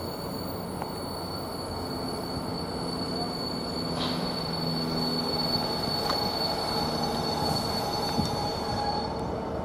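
Thameslink Class 700 electric multiple unit moving along the track, a steady rumble of wheels on rail with a high-pitched tone that stops near the end.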